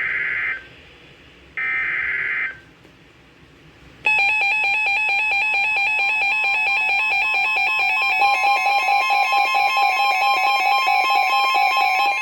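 NOAA Weather Radio Emergency Alert System signal. Two short buzzing bursts of digital SAME header data, each about a second long with a gap between, are followed about four seconds in by a loud, continuous electronic warning alarm tone with a rapid pulsing through it. This marks the start of a warning broadcast.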